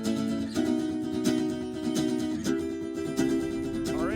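Background music: plucked acoustic strings, a ukulele or guitar, playing sustained chords that change twice.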